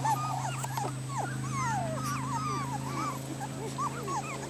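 Several four-week-old Norrbottenspets puppies whimpering and yipping at once. Their cries are short, high and overlapping, each rising and falling in pitch, several a second, over a steady low hum.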